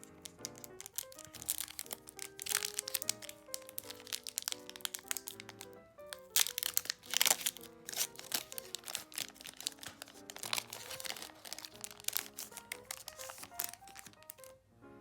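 Pokémon booster pack wrapper crinkling and being torn open in bursts, over background music with a stepping melody.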